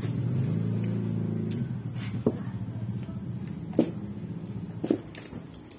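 A vehicle engine running with a steady low hum that fades over the last few seconds, with three short sharp clicks in the second half.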